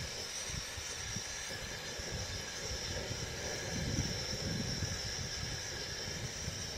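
Steady hiss of a stove heating water and sugar in a hot non-stick pan for sugar syrup, with irregular low rumbles through it.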